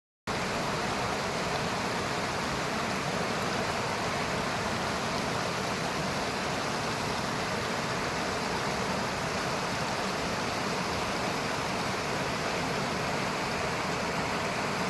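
River water rushing over a rocky bed: a steady, even rush that sets in abruptly just after the start and holds unchanged.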